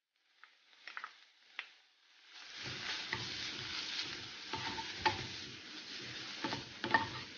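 A few light clicks as grated carrot is tipped into a hot wok, then about two seconds in a steady sizzle as the carrot fries in oil with ginger-garlic-chili paste. Scattered scrapes and clicks come from a spatula stirring it against the pan.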